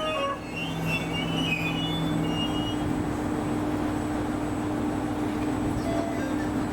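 Train standing at a station platform, running with a steady hum and a constant low tone.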